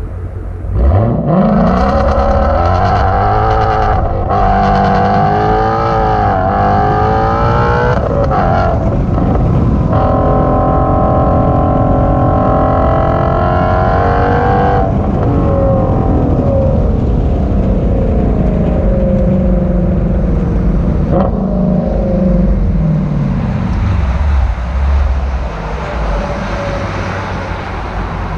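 Ford Shelby GT350's 5.2-litre Voodoo flat-plane-crank V8 through a resonator-delete exhaust, revving up sharply about a second in and then climbing and dropping in pitch through several gear changes. It holds a high, steady note for about five seconds in the middle, then falls away to a lower, wavering note.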